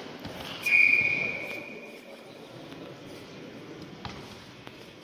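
A single high-pitched ring comes in sharply about half a second in and fades out over about a second. A few faint knocks follow over the low murmur of a large hall.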